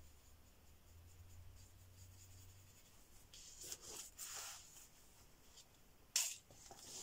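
A paintbrush scrubbing and stroking paint, a couple of seconds of soft scratchy brush strokes about halfway through, followed by a sharp tap about a second before the end.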